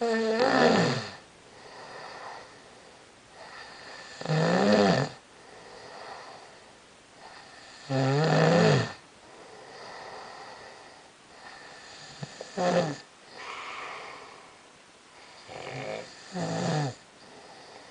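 A sleeping person snoring: loud, rasping snores on each breath in, about every four seconds, five in all, with quieter breaths out between them. The last two snores break up into shorter parts. The uploader puts the snoring down to sleep apnea.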